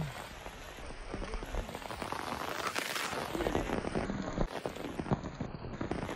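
Steady rain falling, with many small drops hitting close to the microphone.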